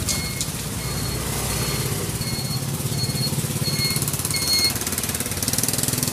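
Street noise led by a motor running steadily with a rapid low rattle, and a short high electronic beep repeating about twice a second.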